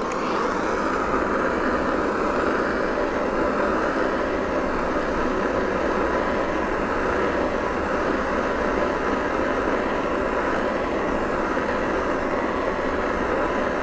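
Jeweller's soldering torch burning with a steady hiss, heating a bezel cup and earring post to flow the solder.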